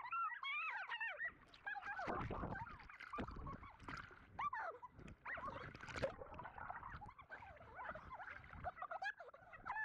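Faint, squeaky, chirpy voices and water sloshing around a camera at the water's surface, with the audio running at double speed so the voices are pitched up and sound almost like animal calls.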